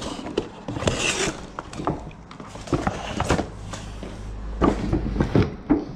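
Cardboard box and packaging being handled and opened: scattered knocks, scrapes and clicks, with a rustle about a second in and a low rumble in the middle.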